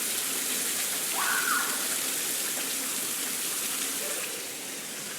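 Steady rain falling, a continuous hiss, with a child's brief cry that rises and falls about a second in.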